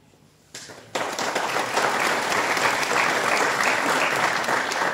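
Audience applause: a few scattered claps, then the clapping fills in about a second in and holds steady.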